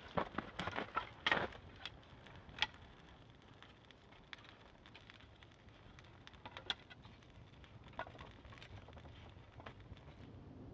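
Campfire crackling: irregular sharp pops, closely bunched in the first second or so, then scattered and sparse over a faint steady hiss.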